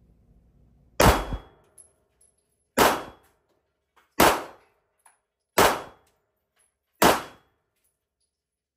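Five handgun shots fired one at a time at a slow, even pace, about a second and a half apart. Each is a sharp crack with a short ringing tail from the indoor range.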